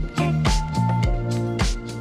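Background music: an upbeat funk-style track with a steady drum beat, kick drum about twice a second, and bass and guitar.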